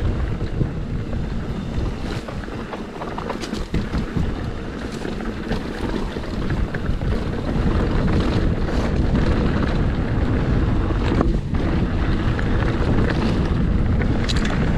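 Wind rumbling on a GoPro microphone as a mountain bike rolls fast down rocky dirt singletrack, with frequent sharp knocks and rattles from the tyres striking rocks and the bike clattering over the rough ground.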